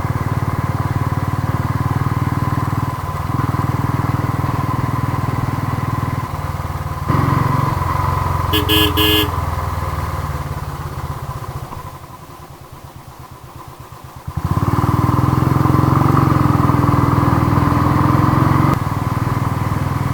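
Royal Enfield Thunderbird 350 single-cylinder engine running on the move, with a short burst of horn beeps about nine seconds in. Around twelve seconds in the engine drops off quiet for a couple of seconds, as when the throttle is closed, then pulls loud again.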